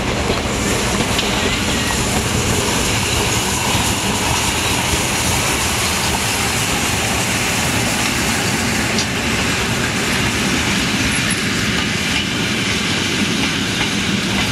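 German class 01.10 express steam locomotive working past at speed with a train of passenger coaches: steady exhaust and running noise, with the wheels clattering over the rails.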